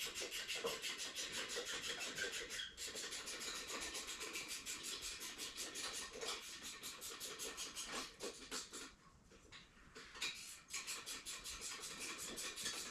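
Hand ratchet clicking rapidly and steadily as a fastener is turned loose, stopping for about a second and a half around nine seconds in, then clicking again.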